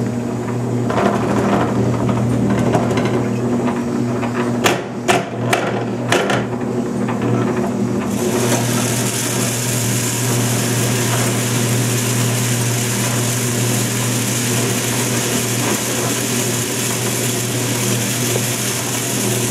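CatGenie self-washing cat box running its cleaning cycle with a steady motor hum. A few sharp clicks come about five seconds in, and a steady hiss joins the hum about eight seconds in.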